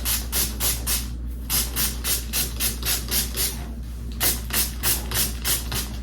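Heat protectant spray bottle pumped onto hair: quick hissing sprays, about three a second, in runs of several with short pauses about a second in and near four seconds in.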